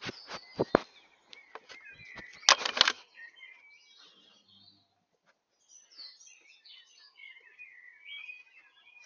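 A badger's fur and body brushing and scraping against a trail camera at close range: several rustling scrapes in the first second and a loud cluster of them about two and a half seconds in. Small birds chirp and sing faintly through the second half.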